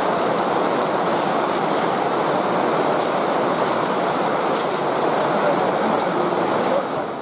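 Heavy downpour falling steadily onto the parasols and wet paving, a dense even rush of rain that cuts off sharply at the very end.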